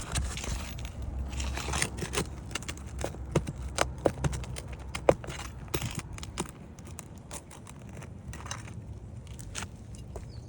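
Irregular metallic clicks and scrapes with crackling, from a flat metal tool working under brittle asphalt shingles to free the nails. The shingles are so brittle they tear.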